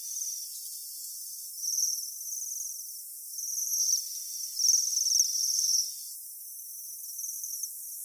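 Japanese waxwings giving a series of high, thin trilled calls in short bouts, loudest around the middle.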